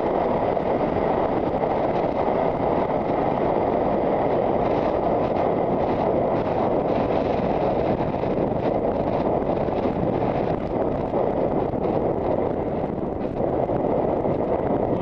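Steady wind rush buffeting the microphone of a camera worn by a rider on a horse galloping at about 18 mph.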